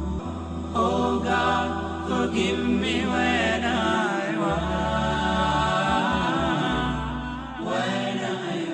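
Background music: a solo voice singing a slow, wavering chant-like melody over a steady low drone.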